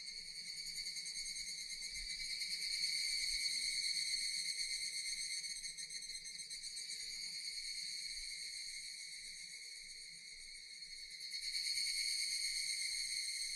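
Japanese cicadas buzzing in a continuous high chorus, swelling louder a few seconds in, easing off about two-thirds of the way through, then swelling again near the end.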